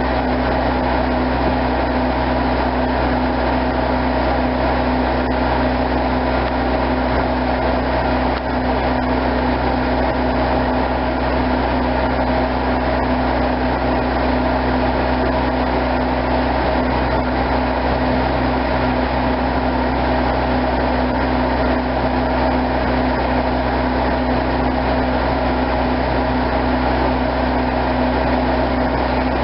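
A heavy engine, most likely the crane truck holding the load, runs at a constant speed throughout, an even hum with no rise or fall in pitch.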